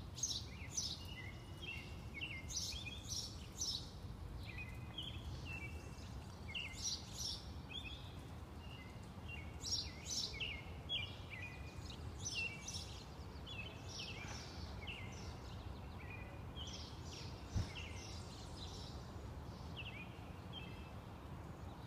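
Several songbirds chirping and singing in short, repeated phrases over a steady low background rumble.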